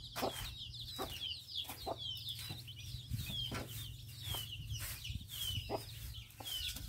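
Young chickens peeping continuously with short falling chirps, over the repeated scrape of a broom sweeping the floor of a chicken pen, about two strokes a second.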